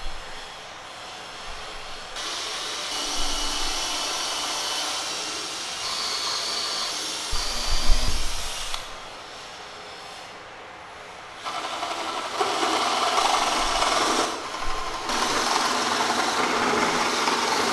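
A power tool working wood, run twice for several seconds each with a quieter pause between, and a low knock near the end of the first run.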